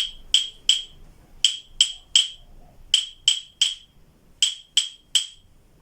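Claves, the pair of hardwood sticks, struck together in a steady pattern of four groups of three sharp, high-pitched clicks.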